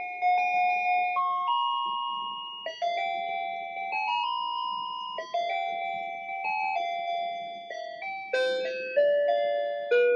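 Musical Christmas Ferris wheel decoration playing a Christmas tune as a thin electronic chime melody, one clean note after another.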